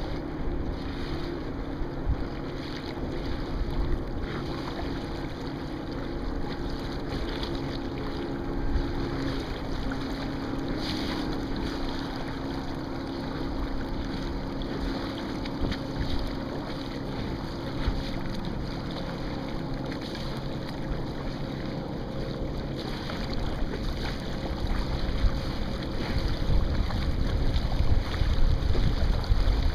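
Wind buffeting the microphone over water rushing along the hull of a Sunfish sailboat under sail, with gusts growing stronger near the end.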